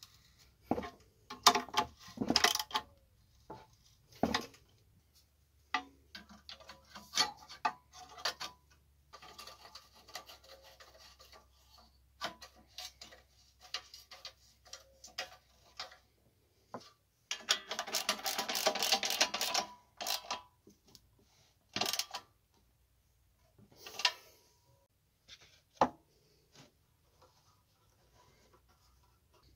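Hand work on small hard engine parts: scattered clicks and knocks as parts are handled, with soft rubbing. About two-thirds of the way through comes a louder rubbing or scraping that lasts about two seconds.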